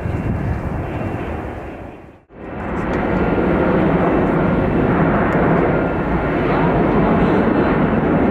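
Loud, steady jet engine noise from a heavy Boeing freighter. The sound drops out briefly about two seconds in, then comes back just as loud.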